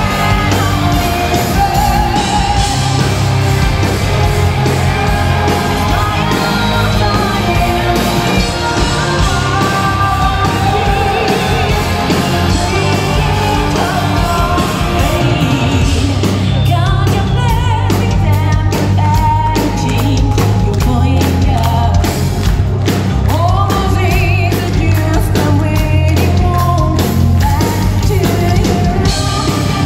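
Symphonic metal band playing live, heard from the audience: a woman's lead vocals over distorted electric guitar, bass and drums. The drums hit a steady, more prominent beat from about halfway through.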